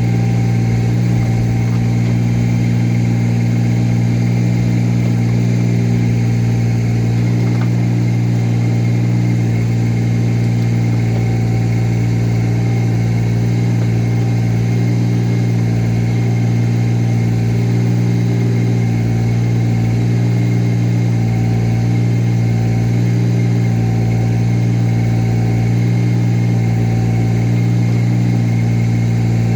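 Engine of the earth-moving machine used to dig and move dirt, running steadily at an even, unchanging speed.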